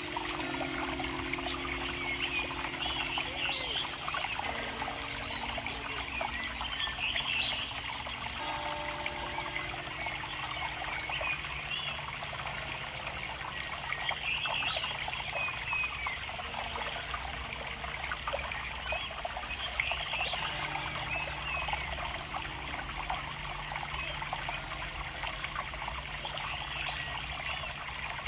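Water trickling and running steadily, with short high chirps scattered through it.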